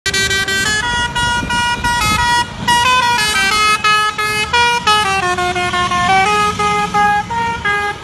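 Multi-tone telolet horn on a heavy-haul multi-axle truck playing a quick tune of short notes that change pitch several times a second, over a low rumble.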